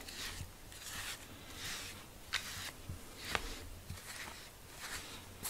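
Rubber grooming brush stroked repeatedly through a cat's fur: a steady run of short, scratchy swishes, about two a second, with a couple of sharper clicks near the middle.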